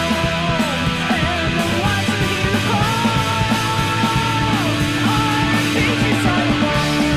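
Recorded rock band music: guitars and drums playing steadily under a melody line that slides between notes.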